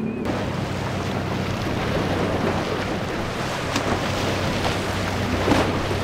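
Single Mercury 150 outboard running under way on a Pro-Line boat through rough, breaking inlet waves, with a steady low engine tone under loud rushing spray, water against the hull and wind buffeting the microphone. A louder splash comes near the end.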